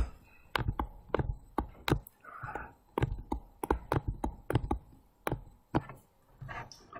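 Stylus pen tapping and clicking on a tablet screen while writing letters by hand: a run of sharp, irregular taps, about two a second.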